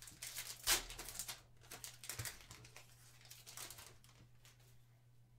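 Trading cards being handled, with a quick run of clicks and crinkling for about four seconds, loudest about a second in, then quieter.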